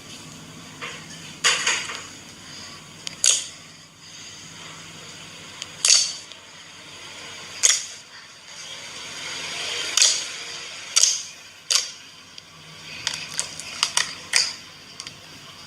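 Slime being squeezed and worked by hand, trapped air popping out in sharp cracks. There are about a dozen pops at uneven intervals, coming quicker near the end.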